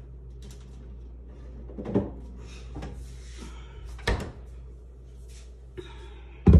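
Kitchen cabinets being opened and shut: three knocks about two seconds apart, the last one, near the end, the loudest, over a steady low hum.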